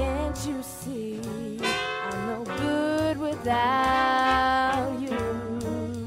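A jazz-style song with brass and a woman singing, with a long note held with vibrato a little past the middle.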